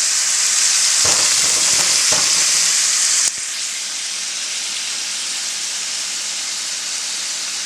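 Beef burger patties frying in hot grease: a steady, loud sizzle that drops suddenly to a softer sizzle about three seconds in.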